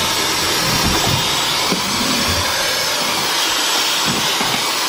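Handheld cordless Dyson vacuum cleaner running steadily, a high, even rushing hiss, as it sucks up crumbs from a wooden floor.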